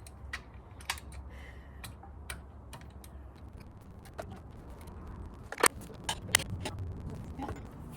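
Irregular metal clicks and clinks from work on a large salvaged generator as its part works loose, with two sharper clanks about five and a half and six and a half seconds in, over a steady low hum.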